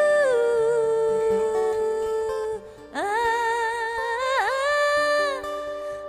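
Female pop singer's wordless vocal ad-libs, long held "ooh" and "ahh" notes over soft backing music. The first note steps down to a lower pitch just after the start. After a short break before the middle, a new note rises in and holds, with a quick dip in pitch and a falling turn near the end.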